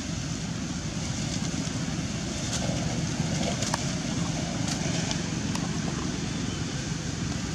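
Steady low wind rumble on the microphone, with a few faint clicks and crackles in the middle of the stretch.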